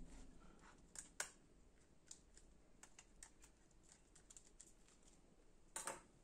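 Faint, scattered clicks and ticks of a small screwdriver working the screw terminals of a motor driver board, with a louder knock and rustle near the end.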